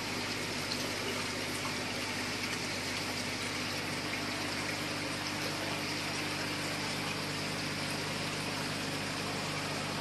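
Aquarium air stones bubbling steadily, water churning at the surface, with a low steady hum underneath.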